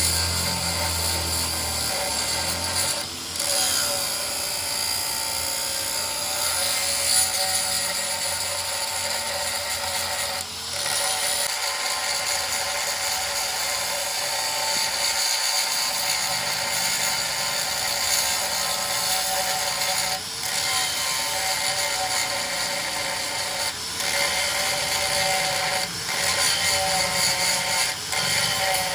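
A hand-held power tool runs steadily with a high whine, scrubbing and cleaning the surface of a tractor engine block. It dips briefly a few times.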